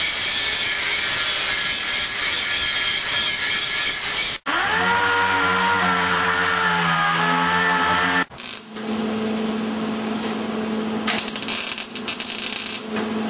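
Shop power tools at work on car bodywork, in three cut-together takes. First a steady abrasive cutting or grinding noise, then a tool motor that spins up to a steady whine, then another steady tool hum with a rattle of clicks near the end.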